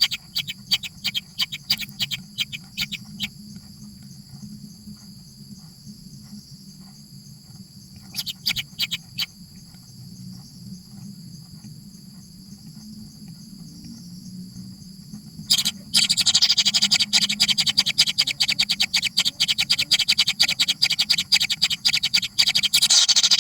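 Nestling birds' rapid, raspy begging calls. Short bursts of fast clicking come at the start and about eight seconds in. About fifteen seconds in they break into a loud, continuous chatter.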